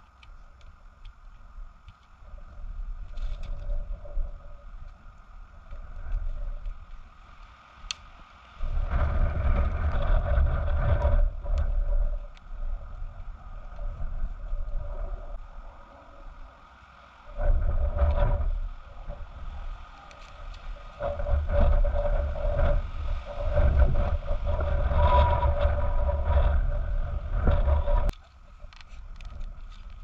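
Wind buffeting the microphone in long gusts, a low rumble that swells and drops several times, with a few sharp snaps between the gusts.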